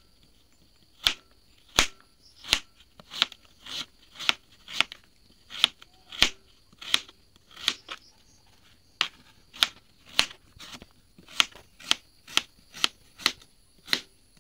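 Kitchen knife slicing through raw peeled taro and striking a cutting board: a steady run of crisp chops, about one and a half a second, with a short pause about eight seconds in.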